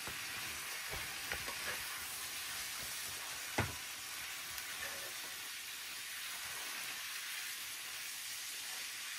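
Pork and aged kimchi sizzling steadily in a pan with perilla oil, stirred with a spatula. A few light clicks of the spatula against the pan, and one sharper knock about three and a half seconds in.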